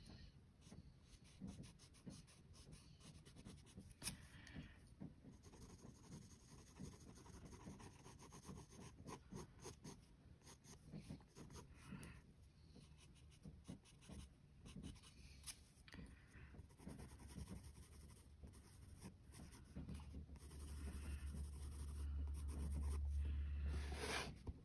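Graphite pencil shading on sketchbook paper: many faint, quick scratching strokes. Near the end a low rumble builds as the sketchbook is moved.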